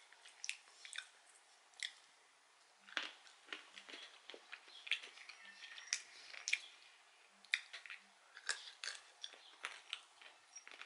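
Roasted peanuts being chewed close to the microphone: faint, irregular crunches and clicks, about one or two a second.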